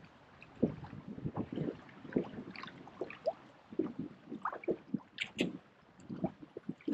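Wind-driven chop lapping and slapping irregularly against the bass boat's hull, with small gurgles and splashes of water.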